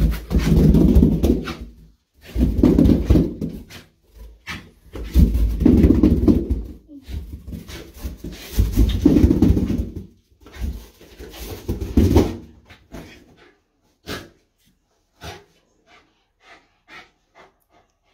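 A small dog making noisy, panting play sounds in loud bursts about every three seconds. The bursts stop after about twelve seconds, leaving a few short faint clicks.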